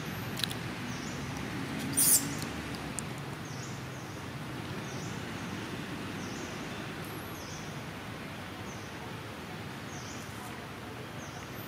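Outdoor tree-canopy ambience: a steady hiss with faint high chirps repeating about once a second. A short, sharp crackle stands out about two seconds in.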